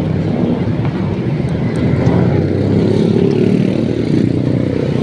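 Road traffic: a steady low rumble of nearby vehicle engines, growing a little louder about two seconds in.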